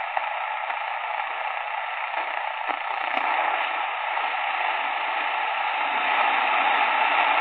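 Steady AM static and hiss from a Sony ICF-SW7600GR portable radio's speaker, tuned to 870 kHz on medium wave where a weak, distant station is barely coming through the noise. The hiss grows a little louder in the second half.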